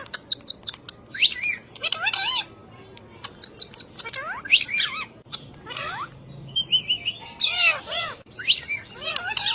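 Pet parrot calling: a string of short squawks and whistled chirps, some sliding up or arching in pitch, with scattered clicks and a brief quick run of notes a little past the middle.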